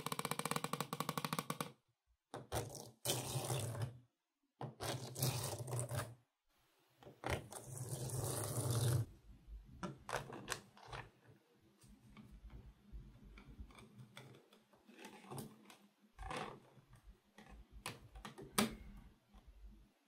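Tiny magnetic balls clicking and rattling as a card is scraped across rows of them: a rapid run of clicks at the start, then several louder scraping bursts, then scattered single clicks as a sheet of balls is peeled off the cube.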